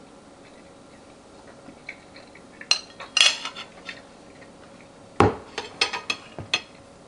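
Metal eating utensil clinking and scraping against a dish in two short flurries of sharp clinks, with one heavier knock about five seconds in.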